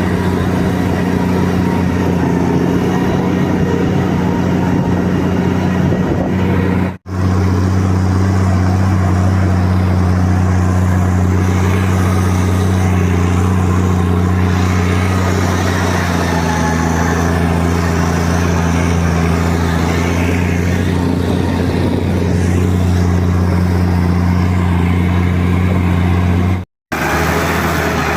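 Large Valmet tractor's diesel engine running steadily under load while pulling a land plane, an even low drone. The sound drops out briefly twice.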